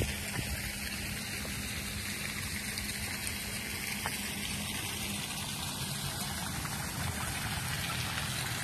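Steady rush of water splashing from a fountain, even and unbroken.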